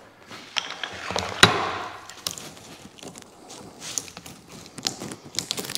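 A plastic blister pack of brake pads being handled and worked open on a workbench: irregular clicks and crackles of stiff plastic and card, with one sharp knock about a second and a half in.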